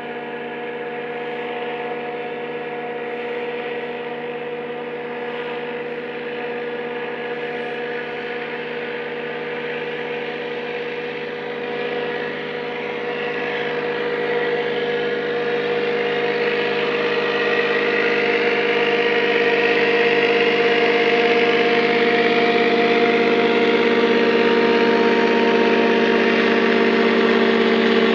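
Boat outboard motor running steadily at low speed, growing louder about halfway through.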